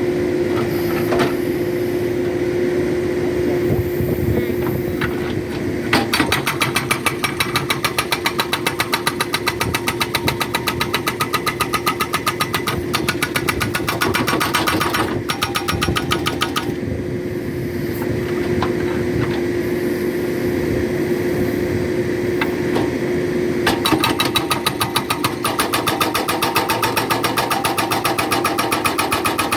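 Backhoe-mounted hydraulic rock breaker hammering in rapid, even blows over the steady hum of the machine's engine. The hammering starts about six seconds in, stops for several seconds in the middle while the engine keeps running, and starts again near the end.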